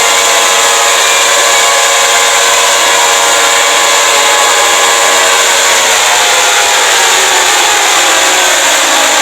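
Loud electronic alarm of a fictional Emergency Alert System: a cluster of steady tones buried in harsh noise. About halfway through, the tones begin sliding down in pitch.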